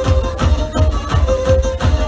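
Live band playing Turkish folk dance music through a PA, loud: a steady kick-drum beat about four times a second under a held melody line.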